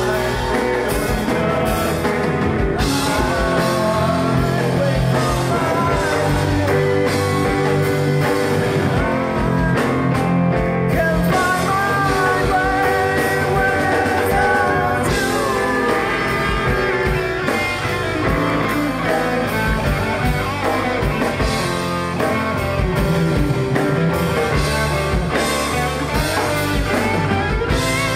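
Live rock band playing a slow rock ballad: sung vocals over electric guitar, keyboard, bass and drums, amplified through a PA.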